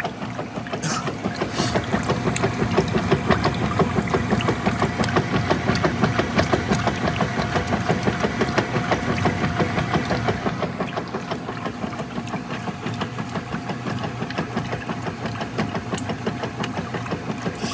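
Whirlpool Direct Drive Ultimate Care II top-load washing machine agitating a load of laundry: a fast, even mechanical chugging from the agitator and its drive. It eases off a little about ten seconds in.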